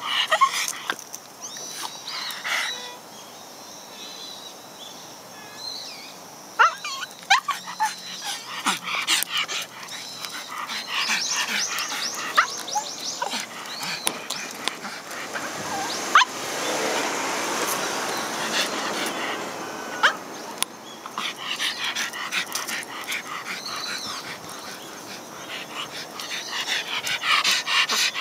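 A tortoiseshell cat meowing again and again, high-pitched calls that come and go, with scattered clicks and a stretch of steady rushing noise in the middle.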